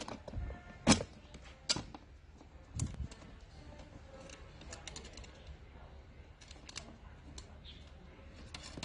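Three sharp metal clicks and knocks in the first three seconds, then faint scattered ticks, as the steel mounting bracket and bolt of a scooter child seat are handled and fitted.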